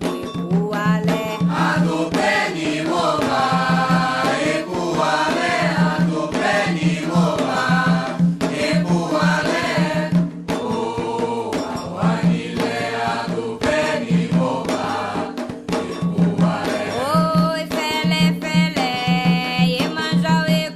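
Voices chanting a Candomblé song for Xangô, with a lead voice and group, over hand drums beating a steady pattern.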